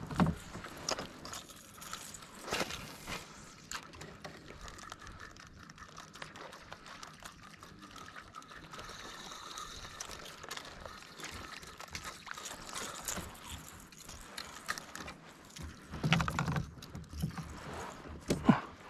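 Water sloshing and dribbling, with scattered short knocks and a louder cluster of low knocks near the end.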